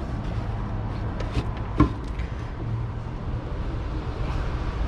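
Light clicks and one sharp knock about two seconds in from hands working a disconnected fuel line at the fuel pump, over a steady low rumble.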